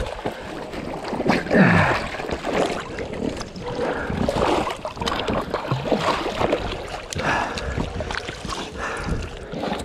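A dog splashing and running through shallow muddy swamp water, heard close up from a camera worn on the dog, with rustling and bumping and a few short sliding animal cries.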